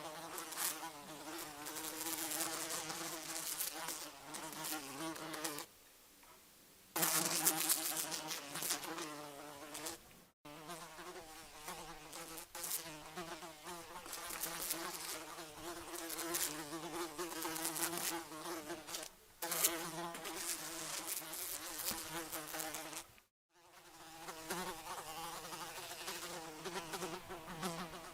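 Fly buzzing in flight: a wavering, pitched drone that rises and falls as it moves. It is made of several takes, with a quieter stretch about six seconds in and short breaks near ten seconds and about twenty-three seconds in.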